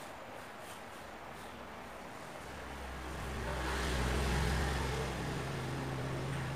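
A vehicle engine swells in from about two seconds in, loudest around four seconds, then holds a steady low hum.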